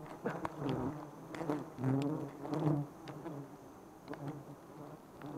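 Wild honeybees buzzing close to the microphone, stirred up around a nest whose comb is being cut. The droning swells and fades every half second or so as bees fly past, louder in the first three seconds and thinner after, with a few faint clicks.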